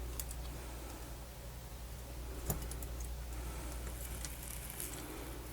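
Light handling of small parts while a portable MiniDisc player is reassembled: a few faint clicks and a sharper click about two and a half seconds in, with light rustling, over a steady low electrical hum.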